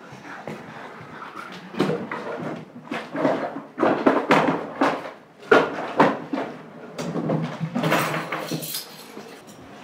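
A wooden drawer pulled open and its contents rummaged through in a hurry: a run of irregular knocks, clunks and clatter, with rustling of things being shoved aside near the end.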